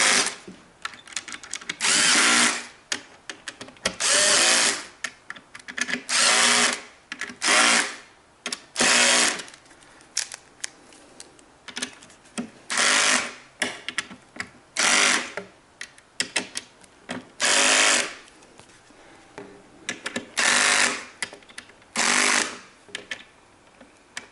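Ryobi cordless drill-driver run in about ten short bursts of a second or less, driving screws through a metal bracket into the wooden panel of a keyboard stand. Between the bursts the drill stops, with small clicks of handling.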